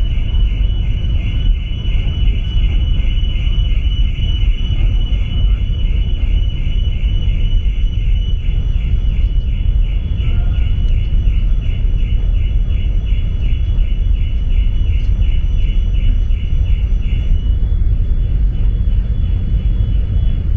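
Steady low rumble and wind noise on board the MV Armorique car ferry under way, with a high, rapidly pulsing whine that stops about 17 seconds in.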